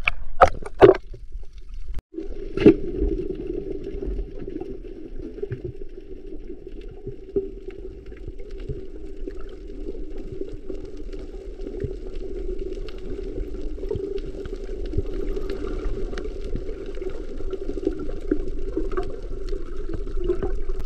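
A couple of sharp water splashes at the surface, then the muffled sound of underwater: a steady low hum with scattered clicks and crackles, and some bubbling.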